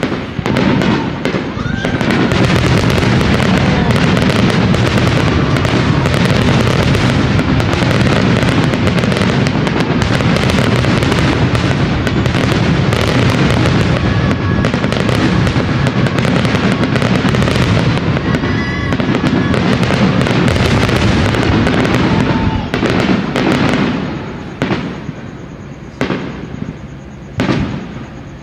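Aerial fireworks in a dense finale barrage: rapid overlapping booms and crackling that go on without a break for about twenty seconds, then thin out to a few separate bangs near the end.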